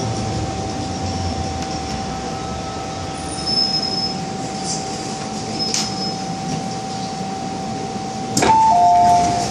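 MTR M-Train electric multiple unit slowing to a stop at a platform: a steady rumble with a constant whine and a couple of brief high brake squeals. About eight and a half seconds in, a click and then the door chime starts, loud alternating high-low beeps, as the doors open.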